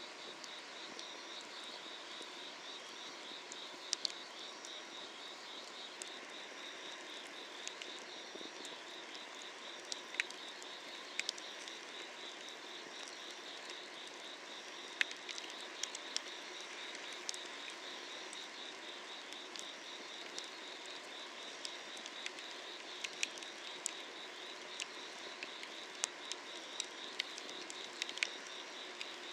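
Wood fire crackling under a cast-iron cauldron, with sharp irregular pops from the burning logs, over a steady chorus of night insects trilling.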